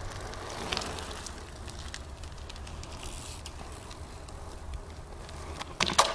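2010 Eastern Growler BMX being ridden on pavement: tyre noise with scattered light clicks, a brief swell a little under a second in, and a loud clattering impact near the end.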